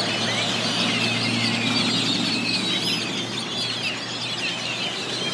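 A large flock of blackbirds calling all at once at their daily gathering place, a dense, continuous chatter of many overlapping chirps and squeaks, over a steady low hum.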